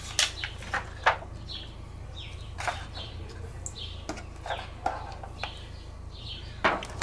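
Scattered clicks, knocks and scrapes of a metal fork against an aluminium foil tray and a wooden cutting board as a baked loaf is lifted out, with birds chirping repeatedly.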